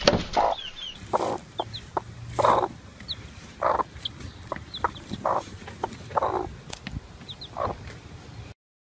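Hen clucking, short calls repeated about once a second, with a few faint high peeps between them; the sound cuts off near the end.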